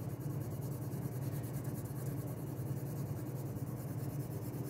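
Pencil shading on paper: rapid back-and-forth scratchy strokes of the graphite laying down an even tone.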